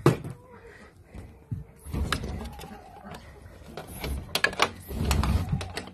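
Sliding window being pushed open along its track: a knock at the start, low rumbling slides about two seconds in and again near the end, and a few sharp clicks just before the last slide.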